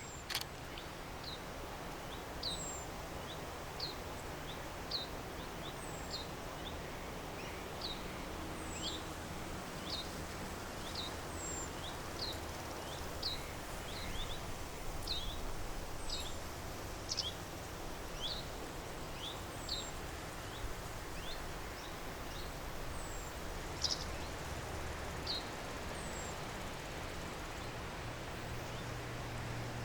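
A small bird calling over and over with short, high chirps that slide down in pitch, about one a second, over a steady outdoor background hiss. There is a single click just after the start.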